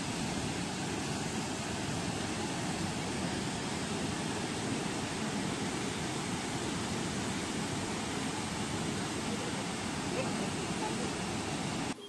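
Steady, even rushing roar of a large waterfall in full monsoon flow, with no changes in it; it cuts off suddenly at the end.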